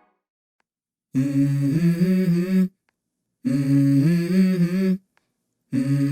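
Background music breaking down to a hummed vocal line without a beat: three phrases of about a second and a half each, separated by short gaps, after about a second of silence.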